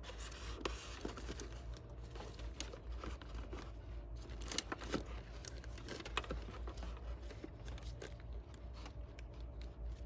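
Irregular small clicks and rustling of wires and a plastic wiring plug being handled, over a low steady hum.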